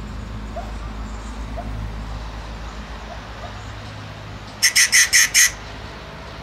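Rufous treepie calling: a quick run of five loud, harsh notes about four and a half seconds in, over a steady low rumble.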